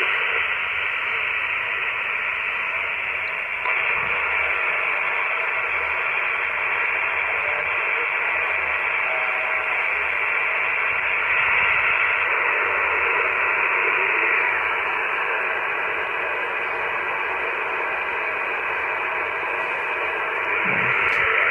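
Icom IC-718 HF transceiver's speaker giving a steady hiss of band static, cut off sharply above and below like a voice channel, with no station coming through. The radio is staying on without cutting out.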